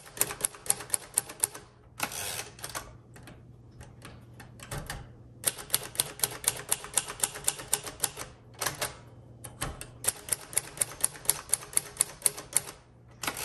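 1958 Royal Aristocrat manual portable typewriter being typed on, fast runs of key strikes at about eight a second with short breaks between runs, as every key is tried out.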